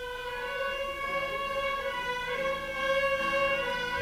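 A group of fiddles playing together at the start of a Cajun two-step, bowing long held notes and gradually getting louder.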